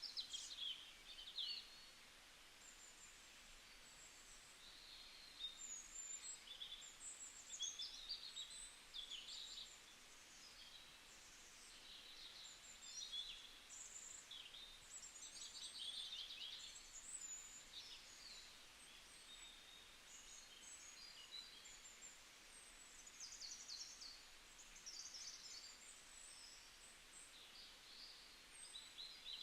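Small songbirds calling, faint: a busy run of short high chirps and quick trills from several birds, overlapping over a soft steady outdoor hiss.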